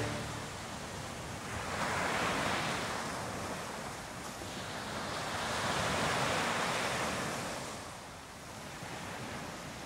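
Sea waves washing onto a sandy beach, a steady surf noise that swells about two seconds in and again around six seconds.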